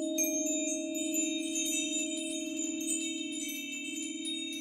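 A crystal singing bowl rings with a steady low hum. From just after the start, a cluster of high chimes tinkles over it in many quick, overlapping strikes.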